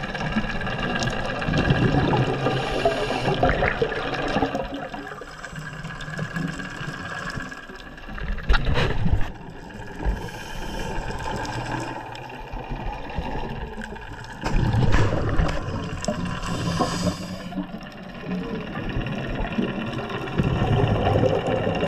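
Underwater sound of a scuba diver's breathing: exhaled bubbles from the regulator rumble in surges every few seconds, over a steady mechanical hum.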